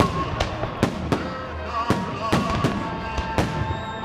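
Fireworks salute going off: a rapid run of sharp bangs, about ten in four seconds, each with a short ringing tail.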